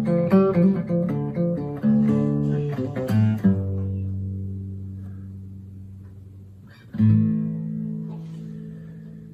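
Guitar playing: a run of quick plucked notes, then a low note left to ring and fade, and a chord struck about seven seconds in that rings out.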